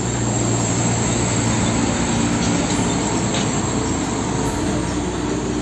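Diesel tanker truck towing a tanker trailer driving past: steady engine hum with tyre and road noise, loud throughout.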